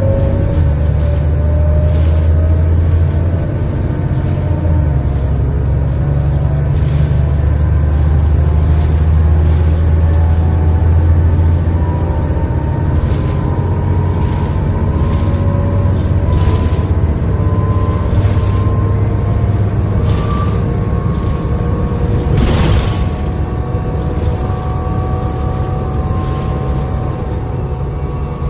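Heuliez GX 427 bus running steadily under way: a strong low engine and ventilation hum, with a faint whine that rises slowly in pitch. One sharp knock comes about 22 seconds in.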